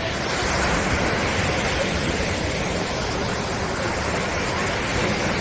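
Surf breaking and washing onto a beach: a steady rush of sea waves.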